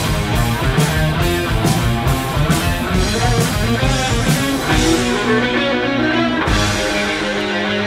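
Rock music with electric guitar and a drum kit, no vocals. The drum and cymbal hits thin out about five seconds in.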